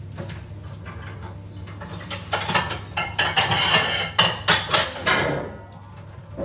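Plates and dishes clattering as a plate is taken out and handled: a busy run of knocks and clinks starting about two seconds in and stopping about five seconds in.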